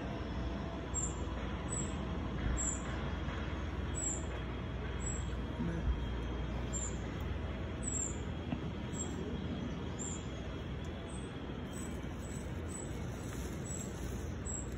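Outdoor ambience: a steady low background rumble, with a small bird repeating a short high chirp roughly once a second.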